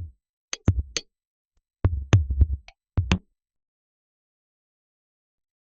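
Electronic drum-machine hits used as a title sound effect: three sharp hits in the first second, a quicker run of hits with deep bass about two seconds in, and a single final hit just after three seconds.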